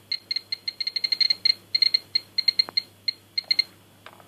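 Hupra HJ001 radiation meter chirping once per detected count: short electronic beeps at random, uneven intervals, several a second, thinning out near the end. This is the counting of the americium-241 source from an ionisation smoke detector held close to it.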